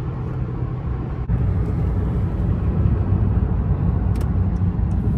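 Steady road and wind noise inside a Honda sedan's cabin at highway speed, a low drone of tyres and engine. It steps up a little louder about a second in.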